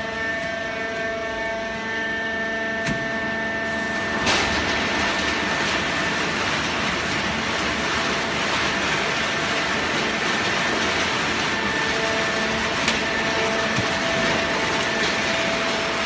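Fully automatic horizontal hydraulic cardboard baler running: a steady machine hum with several whining tones, then about four seconds in a click and a louder rushing noise that keeps on, with a few faint clicks.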